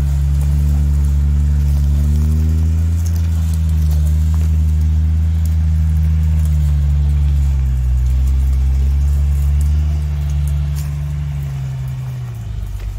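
Shaktiman truck's diesel engine running under a full load of firewood, its pitch rising and falling. It grows quieter after about ten seconds as the truck pulls away.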